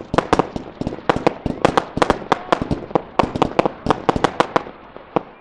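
Aerial fireworks bursting in a rapid, uneven string of sharp bangs and cracks, several a second.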